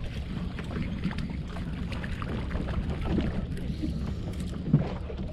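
Fishing boat's engine running with a steady low hum, with light clicks and one short knock near the end.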